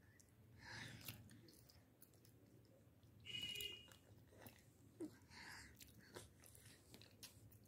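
A toddler chewing potato chips, faint soft crunching and mouth clicks, with a brief high-pitched tone about three seconds in.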